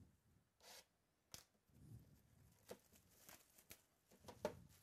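Faint handling of a cardboard Immaculate Baseball trading-card box: a brief rustle, then a few light clicks and taps, the sharpest one near the end.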